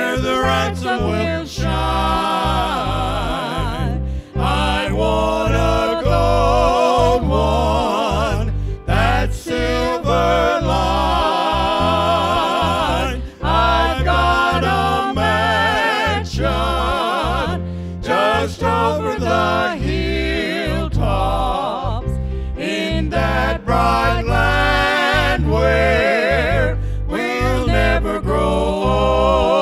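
Male gospel trio singing in harmony with vibrato, in phrases a few seconds long, accompanied by piano and electric bass.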